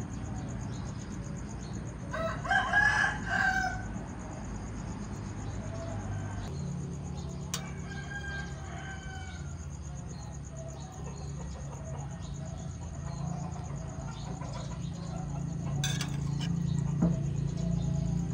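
A rooster crowing once, loud, about two seconds in, followed by a fainter call around eight seconds, over a steady low hum.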